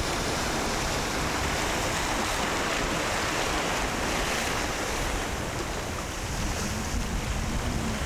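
Ocean surf breaking and washing against shoreline rocks, a steady rushing noise, with wind buffeting the microphone.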